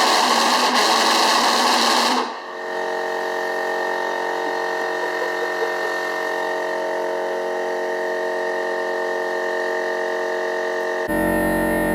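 Hobbyking pulse jet engine running with a steady, high buzzing drone. For the first two seconds it is louder with a rushing roar on top, then it settles to a steady buzz; a deeper rumble joins near the end.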